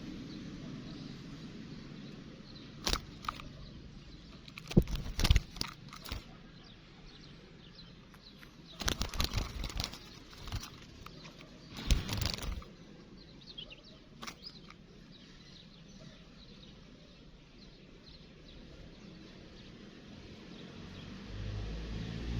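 Faint twittering of a European goldfinch in the open, broken by several sharp knocks and rustles, loudest about five, nine and twelve seconds in.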